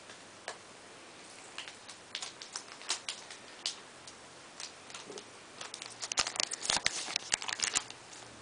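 Foil wrapper of a Yu-Gi-Oh booster pack crinkling as it is torn open and the cards pulled out: scattered small crackles, then a dense run of crinkling about six seconds in.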